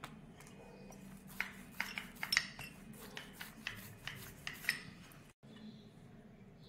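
Wooden rolling pin rolling out a folded stuffed paratha on a granite countertop: a quiet run of about a dozen sharp clicks and knocks as the pin and hands work the dough against the stone.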